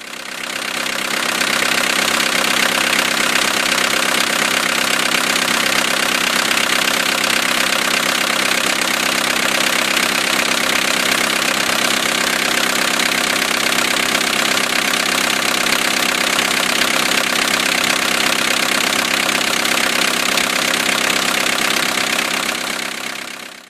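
VW T4 Transporter's 1.9-litre turbodiesel engine idling steadily with diesel clatter, fading in at the start and out at the end.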